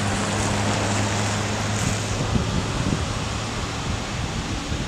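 Wind noise on the microphone over the steady low hum of a 2009 GMC C5500 bucket truck running to power its ETI aerial boom as the boom swings. The hum fades about two seconds in.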